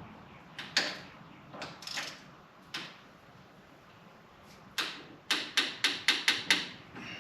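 Hand ratchet clicking as a fork tube clamp bolt is snugged: a few scattered clicks and knocks, then a quick run of about seven clicks near the end.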